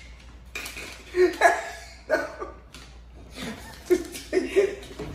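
A man and a woman laughing in short bursts.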